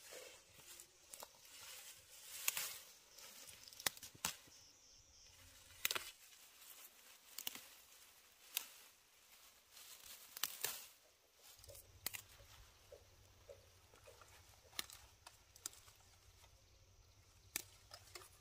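Irregular sharp snaps and crackles, roughly one every second or so, with tearing and rustling between them, as of plant material being handled.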